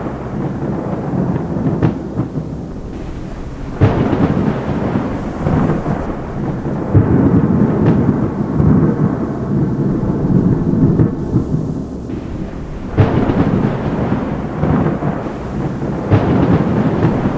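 Thunderstorm: rolling thunder rumbling in waves over rain, with sudden loud claps about 4, 13 and 16 seconds in.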